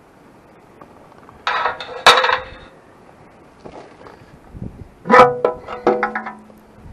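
Metal clanking and ringing in two bouts, about a second and a half in and again about five seconds in, several strikes in the second, as the engine's valve cover is worked loose and lifted off.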